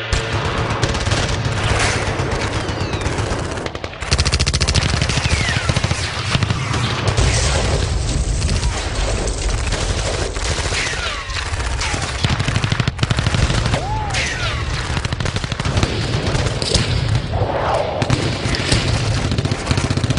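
Battle sound effects: rapid machine-gun fire and volleys of gunshots, with short falling whistles now and then. The firing grows louder about four seconds in.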